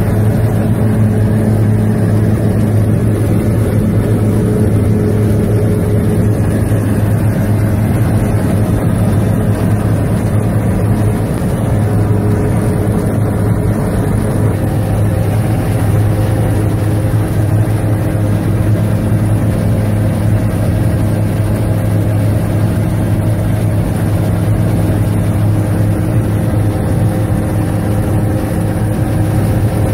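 Kitfox light airplane's piston engine and propeller in cruise, a steady drone heard from inside the cabin.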